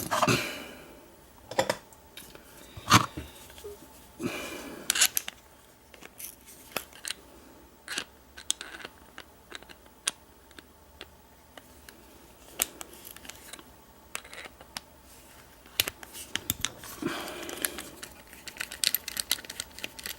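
Irregular small metal clicks, taps and short scrapes from an American 1305 padlock being disassembled by hand after picking, with its parts handled and worked loose.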